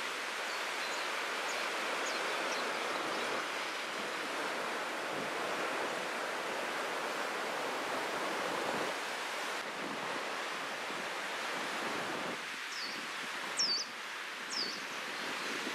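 Sea waves washing and breaking on a rocky shore, with wind on the microphone. Near the end come a few short, high, falling chirps.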